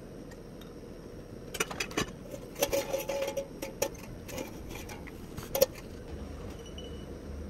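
Single-burner gas stove running steadily under a hammered iron wok, with a scatter of light crackles and metal clicks as oil goes into the wok, and one sharp knock about halfway through.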